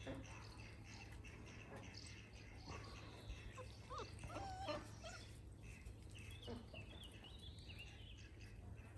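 Dalmatian puppies giving a few faint whimpers and yips, mostly about four to five seconds in.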